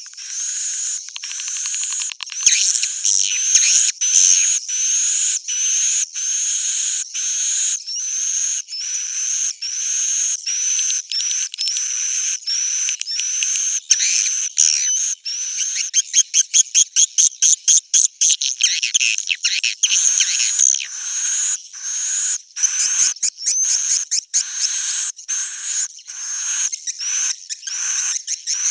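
Swiftlet roosting-call lure recording: edible-nest swiftlets twittering in dense, high repeated chirps, with a quicker run of rapid chirps about halfway through. It is the 'inap' call played in swiftlet houses to draw the birds in to roost and nest.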